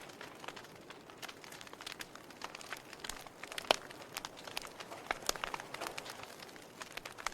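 Wood fire burning in a fireplace: a soft steady hiss with irregular crackles and snaps from the burning logs, the loudest pop a little past halfway.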